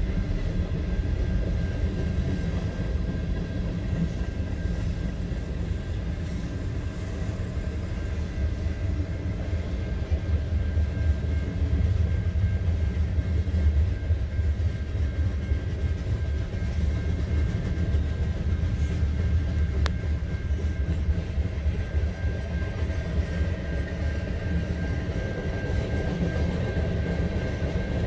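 Canadian National mixed freight train's cars (covered hoppers, gondolas and tank cars) rolling steadily past over a grade crossing, a continuous rumble of wheels on rail, heard from inside a car.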